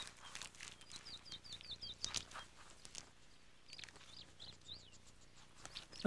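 Faint, high, short peeps from a downy bird chick, in quick runs of three to five: one run about a second in and another near four seconds in. There are a few soft clicks between the runs.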